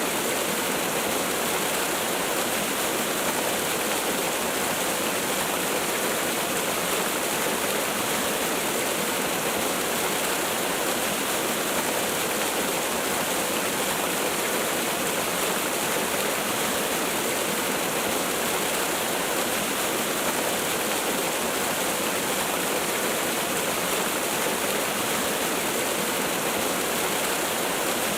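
Waterfall: a steady, even rush of falling water with no change.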